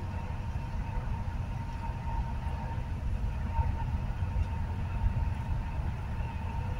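Steady low rumble of tyre and engine noise inside a vehicle cruising on a motorway, with a faint steady whine above it.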